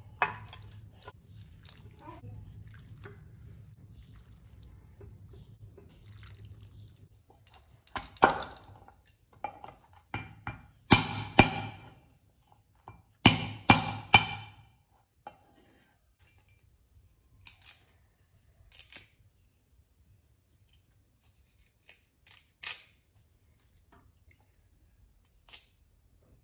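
A steel cleaver chopping on a wooden cutting board: sharp chops in two clusters, about 8 and about 13 seconds in, the loudest sounds here. A few lighter knocks and taps follow. A low steady hum runs under the first several seconds.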